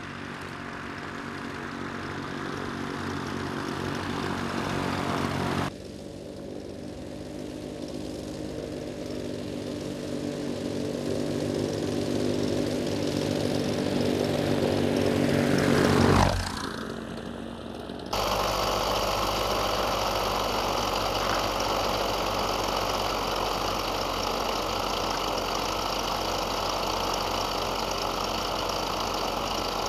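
Backpack paramotor engine and propeller running steadily as it pulls a skier over snow. It grows louder as it approaches, breaks off at a cut, then approaches again and drops in pitch as it passes about sixteen seconds in. After another cut it is heard steady and closer, with more hiss.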